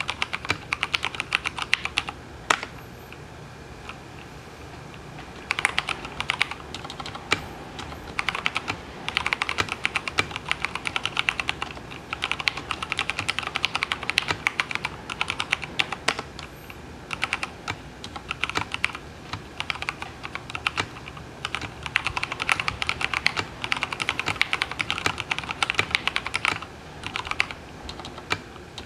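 Custom mechanical keyboard with a stainless steel plate and old-style brown tactile switches lubricated with Krytox 103, typed on in rapid runs of keystrokes. The typing pauses from about 2 s to 5.5 s in, with a single keystroke in the gap, then resumes steadily.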